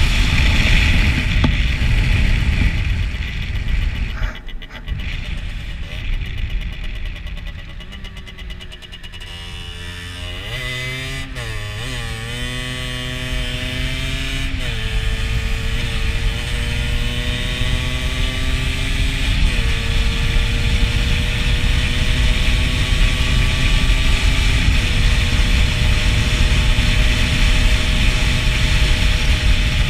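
Rieju SMX 50's two-stroke single-cylinder engine under way. After it eases off for a few seconds, it pulls away again, its pitch climbing through each gear and dropping at each of about four upshifts. A heavy low rumble of wind on the microphone runs under it.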